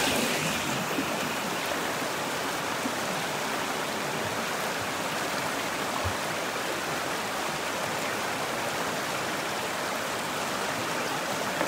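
Steady rushing of a stream of water flowing over rocks.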